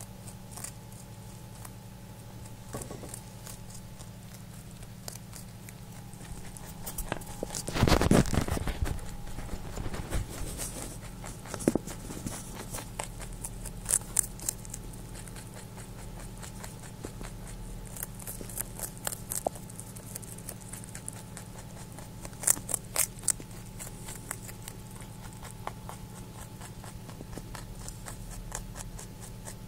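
Rabbit chewing a piece of carrot, its teeth making runs of crisp, quick crunching clicks. About eight seconds in there is a loud rustling bump close to the microphone, over a steady low hum.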